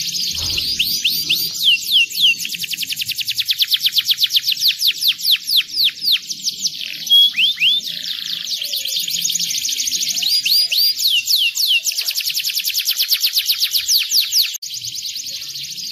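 Domestic canary singing a long, fast song of rapid downward-sweeping notes and rolling trills, with a brief break near the end.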